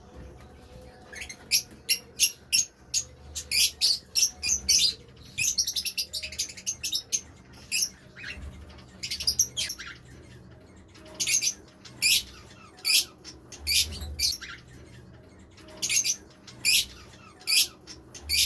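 Lovebirds chirping: many short, sharp, high-pitched chirps in quick runs, several a second, broken by brief pauses.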